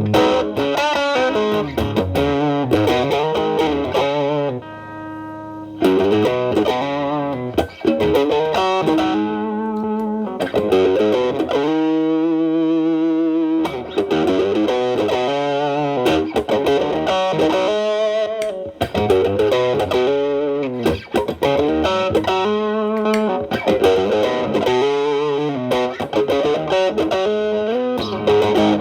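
Telecaster electric guitar through an MXR Distortion+ with its distortion knob set low, around 1 to 2, stacked with a Boss SD-1 into a Marshall Valvestate amp's clean channel, giving a mildly overdriven tone. It plays improvised lead phrases of picked single notes and double-stops, with a long held note shaken with vibrato about twelve seconds in.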